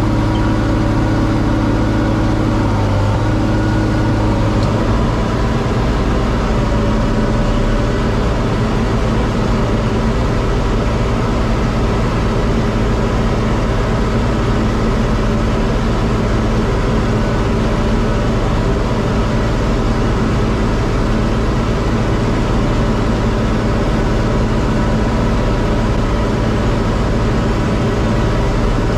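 John Deere 4250 tractor's six-cylinder diesel running steadily while driving a Kuhn VB 3155 round baler. A low hum present at the start drops away about four to five seconds in.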